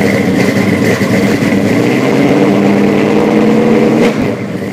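Loud vehicle engine running and revving, dropping in level about four seconds in and fading out at the end.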